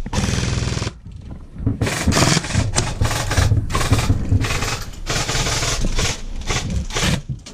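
Airsoft M249 light machine gun (an electric replica) firing full-auto in a series of short bursts, about seven, each under a second, with a rapid even rattle.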